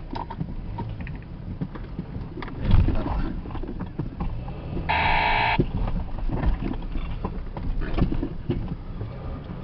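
Off-road vehicle crawling over a rocky track: a steady low engine rumble with knocks and rattles from the rough ground, and a heavy jolt about three seconds in. About five seconds in, a short buzzy electronic beep sounds for about half a second.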